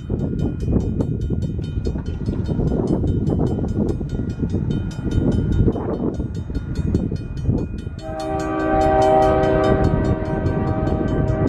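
Long intermodal freight train rolling past, a steady heavy rumble of wheels on rail with rapid, regular clicking. About eight seconds in, a locomotive horn sounds a held chord until the end.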